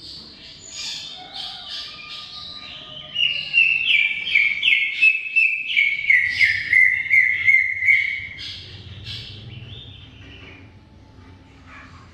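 Cucak ijo (leafbird) in long, lively song. It opens with soft varied warbling, then about three seconds in breaks into a loud fast run of ringing notes, two or three a second, stepping down in pitch. Near the end it trails off into quieter twittering.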